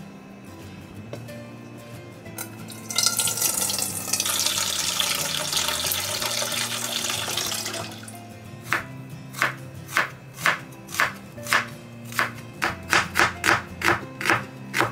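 Water pours noisily into a stainless steel saucepan for a few seconds. After it, a kitchen knife chops shallots on a wooden cutting board in regular strikes, about two a second, quickening near the end. Soft background music plays throughout.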